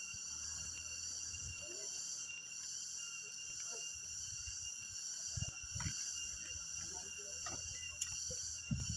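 Steady high-pitched chorus of insects shrilling in the forest, with a few faint low knocks.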